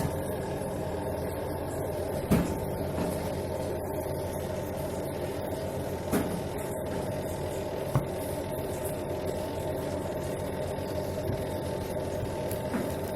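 Videocon Quanta+ 7.3 kg washing machine running with a steady hum and a few short knocks over it. It runs smoothly on a newly fitted, greased buffer, without the spin noise that a torn buffer caused.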